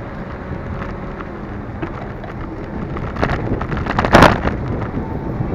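Wind buffeting and road rumble on a camera mounted on a moving bicycle, with rattling knocks as the bike jolts. The knocks gather from about three seconds in, and the loudest clatter comes just after four seconds.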